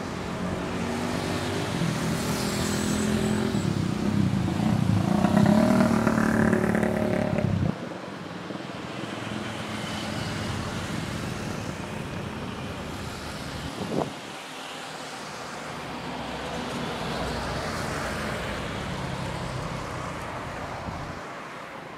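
Distant jet airliner engines, a steady roar with a low droning tone that grows louder, then drops sharply to a softer roar about eight seconds in. A short thump about fourteen seconds in.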